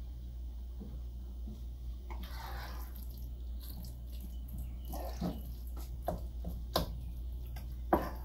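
Wooden spoon stirring and scraping ground meat in a stainless steel pot, with several sharp knocks of the spoon against the pot in the second half, over a steady low hum.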